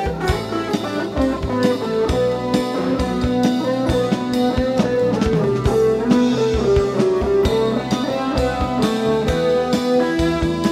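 Band of drum kit, electric guitar, bass guitar and keyboard playing an instrumental passage: a steady drum beat under long held melody notes.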